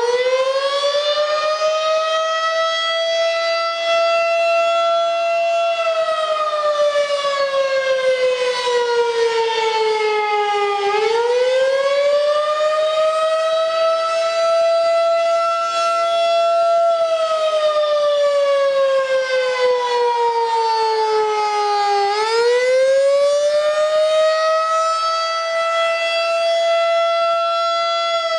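Federal Signal 2001-SRN outdoor tornado siren sounding a test in a slow wail. The pitch rises quickly, holds for about five seconds, then falls slowly, and it starts to rise again about every 11 seconds, three times in all.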